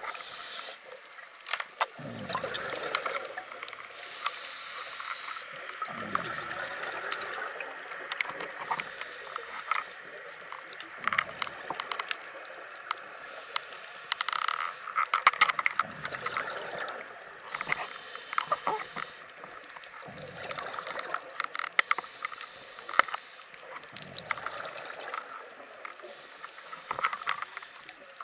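Scuba diver breathing underwater: a regulator hiss on each inhale and a falling rush of exhaled bubbles, repeating about every four and a half seconds, over a scatter of sharp crackling clicks.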